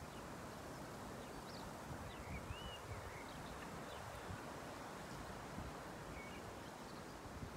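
Quiet outdoor ambience: a steady low hiss with soft rustling, and a few faint bird chirps about two to three seconds in and again near the end.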